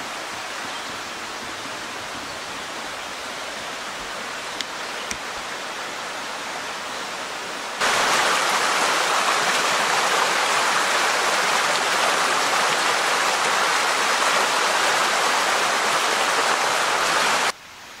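Shallow rocky creek rushing over stones, a steady rush of water. About eight seconds in it becomes suddenly much louder and fuller, close to a small riffle tumbling between rocks, and it drops away abruptly near the end.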